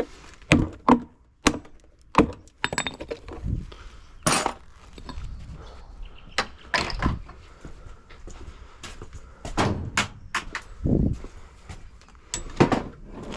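Irregular knocks, clunks and clatters of washing machine drum and tub parts being handled and moved during a teardown.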